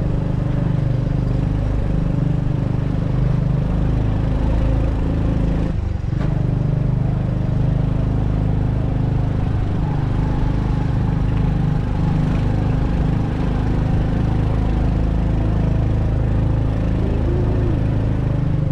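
Motorcycle engine running steadily at low speed, heard from on the bike as it rolls slowly along, with a brief break about six seconds in.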